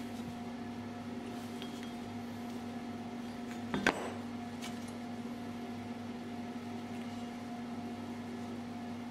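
A steady hum runs throughout, with one sharp metallic clank just before four seconds in as a steel plate is set down on the wooden bench, and a few faint taps from the plates being handled.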